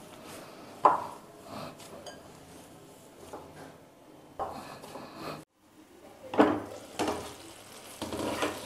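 Hands mixing and kneading a soft paneer-and-potato dough in a glass bowl, with soft rubbing and an occasional knock against the glass. After a sudden cut, a wooden spatula stirs a cooked tomato-onion masala in a metal pan, knocking and scraping against the pan a couple of times.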